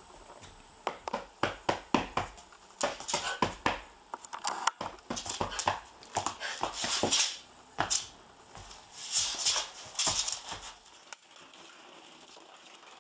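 Rough collie puppy's claws and paws clicking and scuffling on a hard wooden floor: a quick irregular run of sharp clicks with a few louder scrabbling rushes, stopping near the end.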